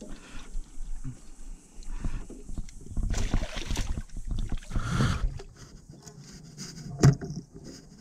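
A large carp thrashing and splashing at the surface beside a boat as it is being landed, with rushes of splashing between about three and five seconds in. A single sharp knock comes near the end.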